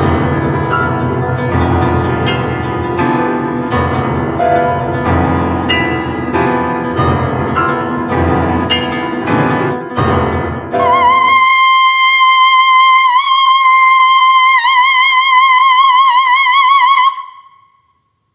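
Contemporary chamber-opera music: a piano with other instruments plays dense struck chords for about eleven seconds. It cuts to a soprano holding one high note, its vibrato growing wider, for about six seconds. The note cuts off suddenly near the end.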